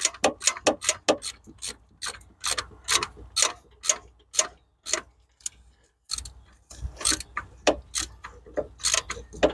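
Socket ratchet clicking in short back-and-forth strokes as it tightens a new oil-pressure sending unit, with a pause of about a second halfway through.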